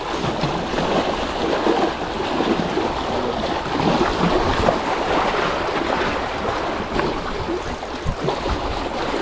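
Small sea waves washing and splashing over shoreline rocks, a steady wash of water.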